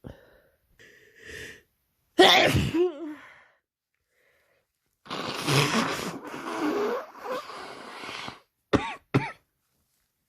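A person with a cold sneezing: a few quick catching breaths, then a loud wet sneeze about two seconds in. A longer noisy spell of about three seconds follows midway, then two short sharp sneezes near the end.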